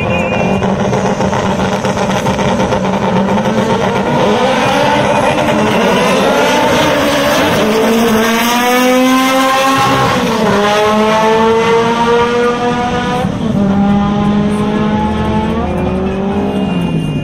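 Drag-racing car accelerating hard down the strip. The engine pitch climbs, drops sharply at an upshift about ten seconds in, climbs again, drops at another shift a few seconds later, and falls away near the end.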